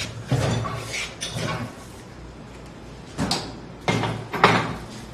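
Coats 7060AX rim-clamp tire changer in use: about five short clunks and air-hiss bursts as its pneumatic clamps and pedals are worked and the wheel is handled on the turntable, over a steady low hum.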